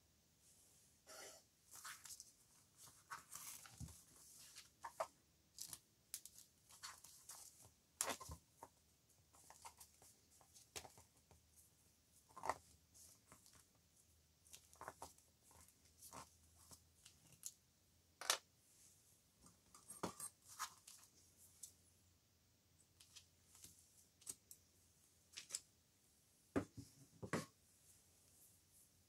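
Faint, scattered rustles and light ticks of paper and waxed thread as a signature is hand-sewn into a notebook cover, the thread pulled through the folded pages and the sheets handled.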